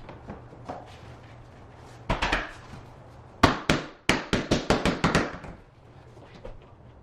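Vinyl click-lock flooring planks being worked: a short scrape, then a quick run of about eight sharp knocks in under two seconds.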